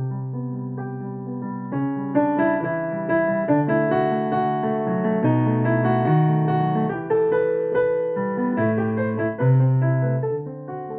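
Improvised solo piano music: held low chords, then from about two seconds in a busier stretch of quick notes over sustained bass notes.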